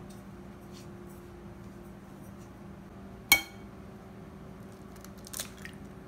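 An egg knocked once, sharply, against the rim of a glass mixing bowl, the glass ringing briefly. A few softer clicks follow about two seconds later as the shell is broken open.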